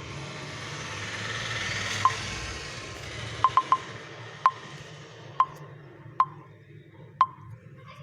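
Eight short, high beeping clicks, irregularly spaced with a quick triple among them, from a Redmi phone's default touch sounds as the screen is tapped and swiped. Under the first half, a rushing noise swells and fades.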